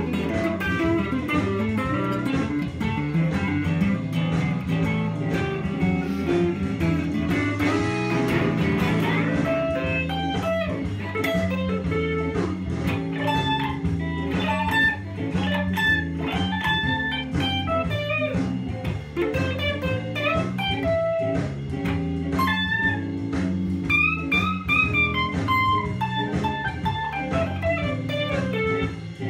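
Stratocaster-style electric guitar playing a blues lead, single picked notes over a steady, repeating low accompaniment, with a falling run of notes near the end.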